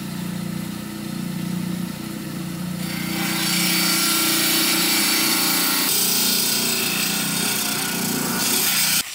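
Diamond-blade lapidary rock saw running with a steady motor hum, then grinding into a small agatized coral geode from about three seconds in, a louder hissing grind that cuts off near the end.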